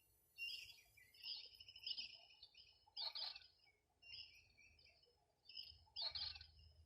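Faint bird chirps: short, scattered calls, the loudest about three seconds in and again about six seconds in.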